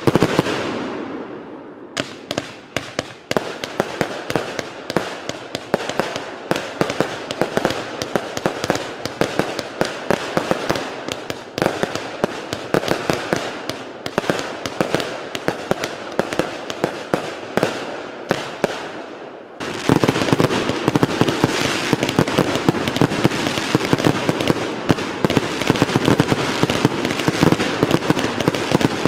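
Aerial fireworks display: shells bursting in a continuous barrage of sharp bangs and crackles. About twenty seconds in it jumps abruptly to a louder, denser barrage.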